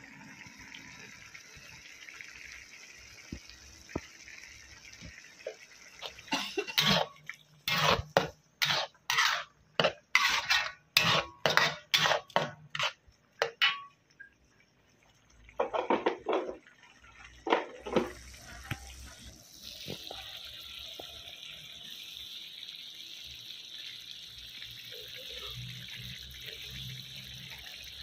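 Metal spatula scraping and stirring thick sambal in a wok, with sharp strokes about two a second for several seconds, then a couple more after a pause. After that the sauce simmers with a steady bubbling hiss.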